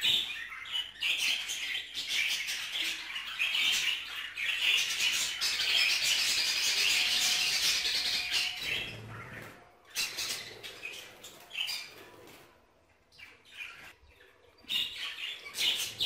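Budgerigars chattering and chirping in a dense warble for the first eight or nine seconds, then thinning to scattered chirps with a brief lull near the end.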